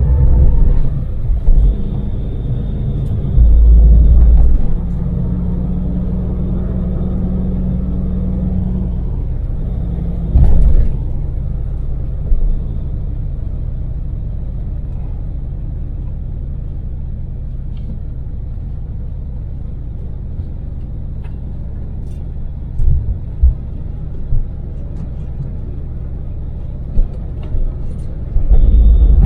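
Daewoo Damas microvan's small LPG engine running with road rumble, heard from inside the cabin; a steady engine note holds from about three to nine seconds in. Several brief low thumps break through the rumble.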